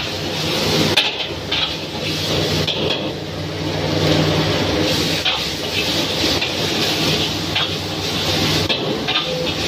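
Noodles sizzling in a smoking wok over a gas flame, with a long metal ladle scraping and clanking against the pan at irregular moments. A steady low hum runs underneath.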